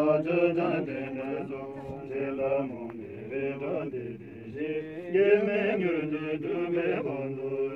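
Tibetan Buddhist monks chanting a prayer, men's voices in a continuous chant that rises and falls in pitch.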